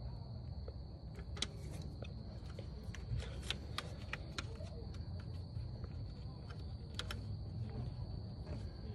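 Scattered light clicks and ticks of hands fastening the alternator's wiring harness and plastic connector clips in the engine bay, over a low steady rumble and a faint high steady tone.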